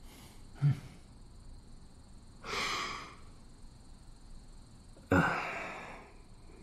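A person's breathy exhales, two sighs a couple of seconds apart, the second stronger and trailing off over about a second, with a faint short sound about half a second in.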